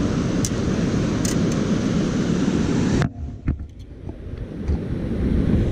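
Steady rush of water at a river dam, mixed with wind on the microphone. It cuts out sharply about three seconds in, with a few clicks, then builds back up over the next two seconds.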